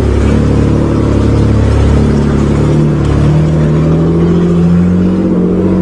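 1986 Nissan 4x4 pickup's 3-litre V6 running under load, heard from inside the cab, its note climbing slowly and steadily.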